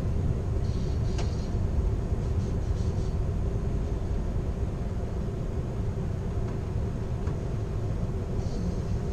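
Steady low rumble of a moving passenger train car rolling over the rails, heard from inside the rear car of Amtrak's California Zephyr, with a click about a second in and a few brief, faint high squeaks.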